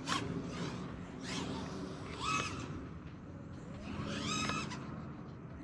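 FPV racing quadcopter's brushless motors (6S, 1950 KV) whining up and down in short throttle bursts, each pitch rising then falling, about four or five times.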